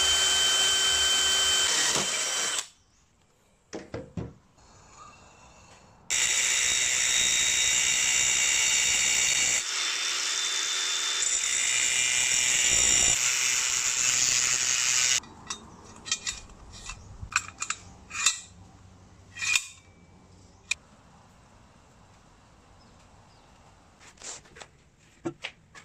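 A cordless drill boring into a steel square tube for about two and a half seconds. Several seconds later an angle grinder cuts through steel square tube for about nine seconds, followed by scattered clicks and knocks of metal and wood pieces being handled.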